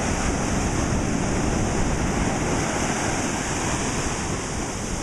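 Ocean surf breaking and washing through the shallows: a steady rush of water.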